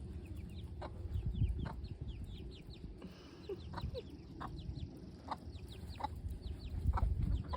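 Broody hen clucking in short calls, with many quick high chirps from the flock. Low rumbles on the microphone come about a second and a half in and again near the end.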